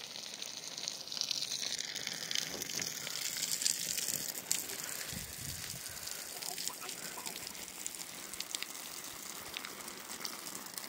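Rain falling on wet soil and grass: a steady hiss with many small drop ticks.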